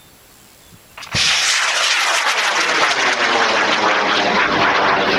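High-power rocket's M1670 solid motor igniting about a second in, starting suddenly and then burning with a loud, steady, crackling roar as the rocket lifts off.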